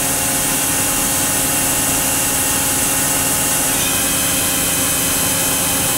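Okuma & Howa Millac 630H horizontal machining center's CAT-50 spindle running at about 3,500 RPM with a steady whine, stepping up in pitch about four seconds in as the speed override raises it toward 5,000 RPM. The spindle sounds perfect, a sign of healthy spindle bearings.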